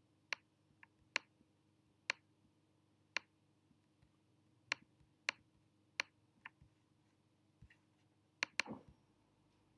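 Faint, sharp clicks of a computer pointing device being clicked, about a dozen spaced unevenly, with two in quick succession near the end.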